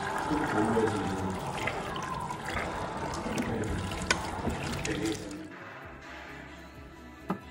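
Kitchen tap running into a bowl of tomatoes in a stainless steel sink, splashing as the tomatoes are rubbed clean by hand. The flow stops a little over two thirds of the way through, and a single sharp knock comes near the end.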